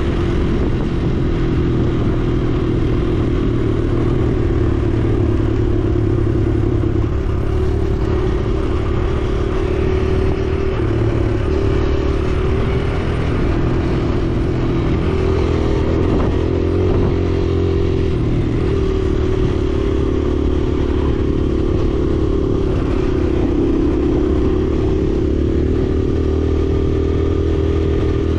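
Kawasaki KLX140R L dirt bike's single-cylinder four-stroke engine running while ridden, its pitch rising and falling with the throttle.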